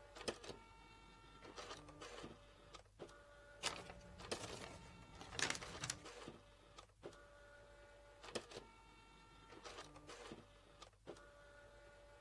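Office printer running: a faint steady motor whine broken by clicks and short paper swishes as pages feed out and are handled.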